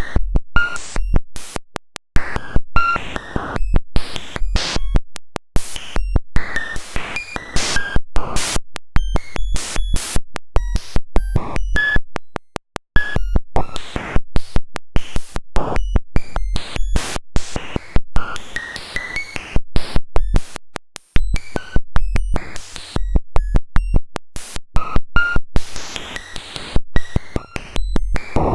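A cellular automaton's population ratio, one sample per generation, written straight into the waveform: a harsh digital buzz made of dense clicks, short steady tones that jump in pitch, and stretches of hiss. It breaks off briefly about 2 s in, near the middle, and again about two-thirds of the way through.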